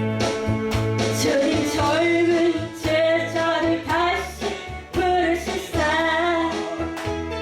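A woman singing a song to a backing track with a steady beat; her voice comes in about a second in.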